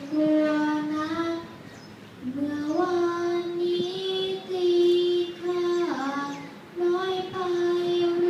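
A girl's voice chanting Thai verse in the sung recitation style (thamnong sanao), holding long notes in phrases with short breaks between them.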